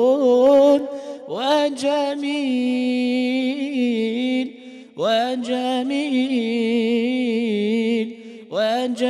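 A solo male voice singing Islamic devotional song (inshad) melismatically into a microphone: three long drawn-out phrases, each opening with an upward swoop and held with a wavering ornament, with short breaths between them.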